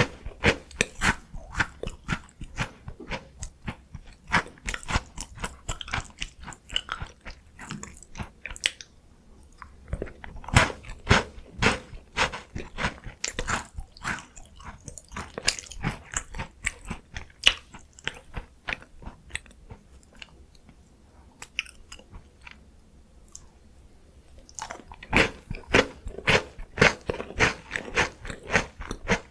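Close-miked crunching and chewing of Korean chocolate snack biscuits: sharp, irregular crunches with wet chewing between them. The crunches thin out for a few seconds past the middle, then come thick and loud again near the end.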